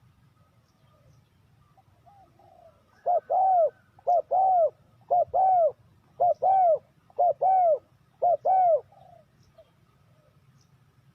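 Spotted dove cooing: six two-note phrases, each a short coo followed by a longer one, about one a second, starting about three seconds in. Fainter coos come before and after them.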